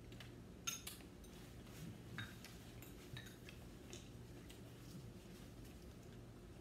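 Faint, scattered clicks and clinks of chopsticks, spoons and a ladle against bowls and a stainless steel hot pot, a handful over several seconds, the sharpest about two-thirds of a second in.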